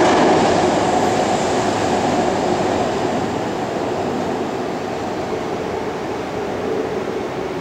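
Nine-car BART train pulling away from the platform, a steady rumble that slowly fades as the train recedes.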